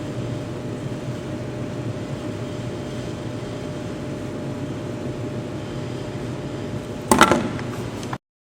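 Steady low mechanical hum of shop background, like a ventilation fan running. About seven seconds in comes a brief, loud clatter, and then the sound cuts off abruptly.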